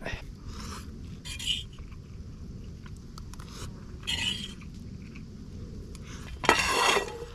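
Several short scraping and rustling noises, the longest and loudest near the end.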